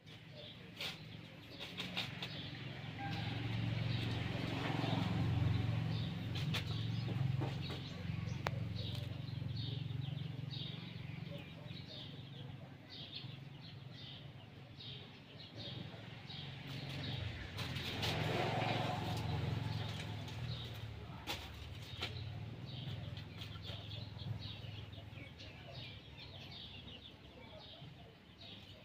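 Outdoor ambience: a low rumble that swells twice, with birds chirping over it again and again and a few light clicks.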